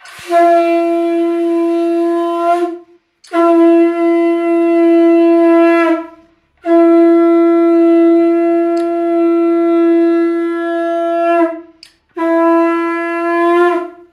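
Conch shell (shankha) blown in four long, steady blasts separated by short breaths, the longest about five seconds, each sagging slightly in pitch as it ends; the conch sounded during the aarti of the ritual.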